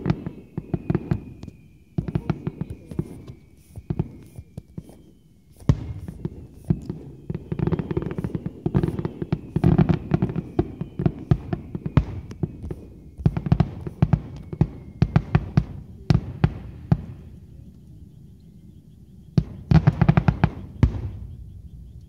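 Fireworks display: aerial shells bursting in many sharp bangs that come in rapid clusters. The volley is densest through the middle stretch, goes quiet for a couple of seconds, then another fast burst of bangs comes near the end.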